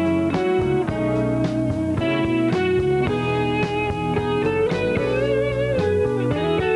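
Live rock band playing: electric guitar over keyboards, bass and drums, with a steady beat of drum strikes.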